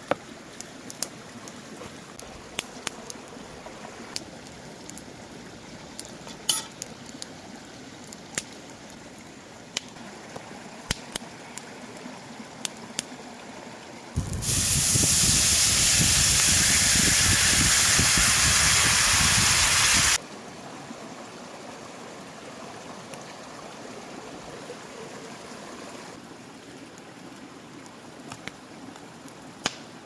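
A cast-iron skillet over a campfire hissing loudly for about six seconds as liquid sizzles and steams in the hot pan, cutting off abruptly. Around it, softer scraping and small clicks of a wooden spoon working mashed potatoes in a wooden bowl.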